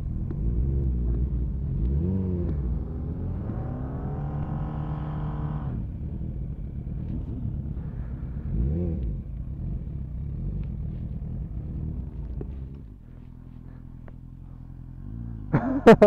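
Motorcycle engine running under load, its pitch rising and falling with the throttle, with one long climb in revs a few seconds in. About thirteen seconds in it drops back to a quieter, steady idle.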